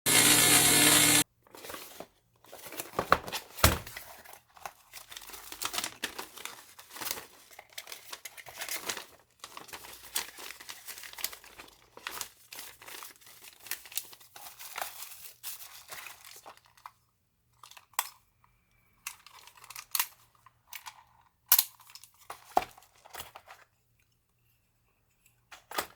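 A loud burst of noise for about a second at the start, then irregular crinkling and rustling handling noises, thinning out into scattered clicks and taps near the end.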